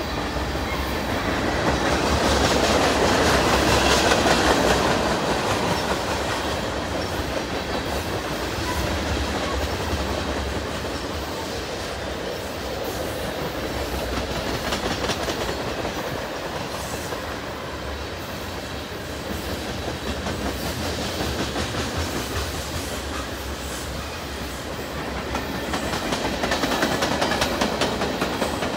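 Freight train tank cars rolling past in a steady rumble, with the clicking of steel wheels over the rail joints. It swells louder a couple of seconds in and again near the end.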